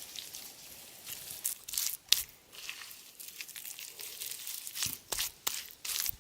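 Irregular rustling and crackling of dry material being handled, with a few sharp snaps about two seconds in and again near five seconds.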